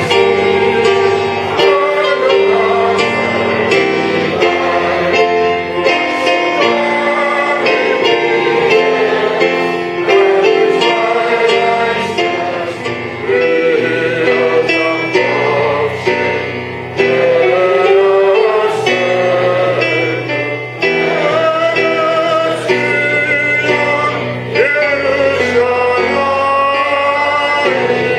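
Singing with instrumental accompaniment: voices carrying a slow melody over held notes.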